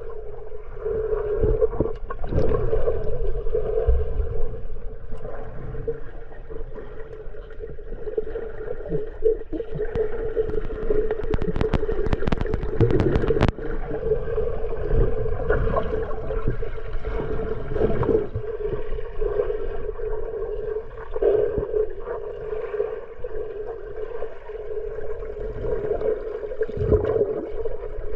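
Muffled water sloshing and gurgling over a steady hum, with a quick run of crackling clicks about eleven to thirteen seconds in.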